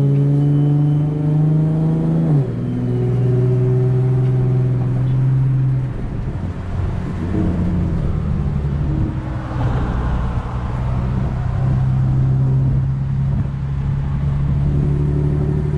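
A car's engine and exhaust running with a steady note that drops suddenly in pitch a couple of seconds in, turns rougher and uneven in the middle, then settles back to a steady note; the listeners take it as a good-sounding exhaust.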